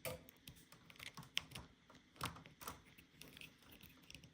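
Light, irregular clicks and taps from hands working computer equipment, a few a second and faint, with louder ones about a second and a half and two seconds in.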